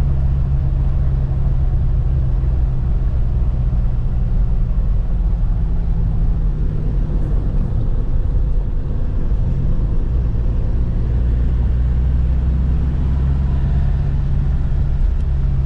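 Motor vehicle running: a steady, loud low rumble with a constant low hum.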